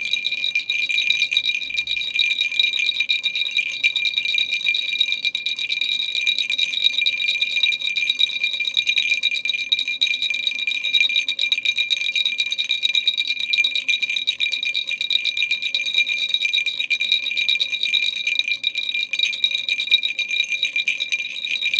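A baby rattle shaken steadily without a break: a dense stream of small clicks over a steady, bell-like ringing.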